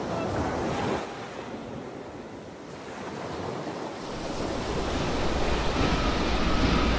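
Sea ambience: a steady wash of waves and wind that thins out about a second in, then swells again with a deep rumble building toward the end.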